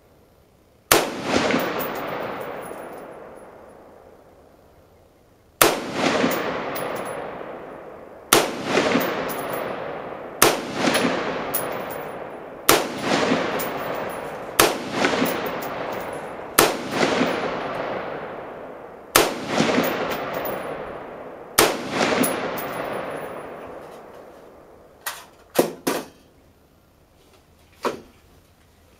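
DPMS M4-style AR-15 carbine fired semi-automatically, nine single shots a few seconds apart, each followed by a long echo dying away. Near the end come a few light metallic clicks as the rifle is handled.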